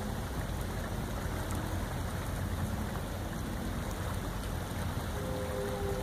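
Steady rushing of flowing floodwater, an even noise without breaks.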